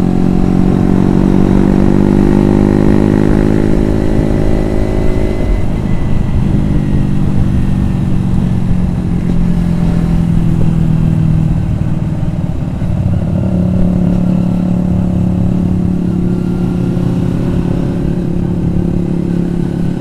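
Kawasaki Ninja 250 FI parallel-twin engine running under way. It rises in pitch over the first five seconds as it accelerates, drops as the throttle eases, then holds a steady cruise, with a brief dip about twelve seconds in.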